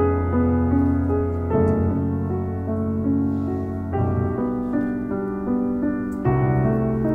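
Background piano music: an unhurried melody of single notes over held low bass notes.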